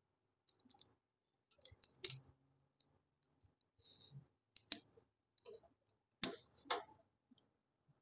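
Small plastic clicks and taps as a microwave oven's door-interlock microswitch and its wire terminal are handled and pressed into the plastic latch bracket: a scattering of faint, separate clicks, four of them sharper, about two, four and a half, six and a quarter and six and three-quarter seconds in.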